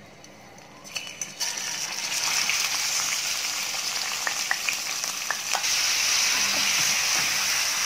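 Raw beef pieces hitting hot oil in a steel wok, starting suddenly about a second in. The meat then sizzles and fries steadily while a slotted spoon stirs it, with a few clicks of the spoon against the pan.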